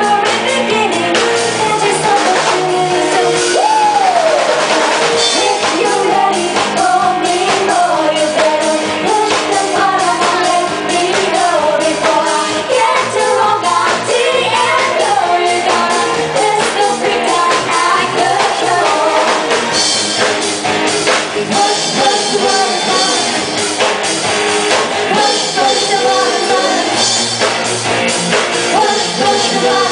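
A live band playing a pop song, with a lead singer's held, wavering lines over drums and guitar.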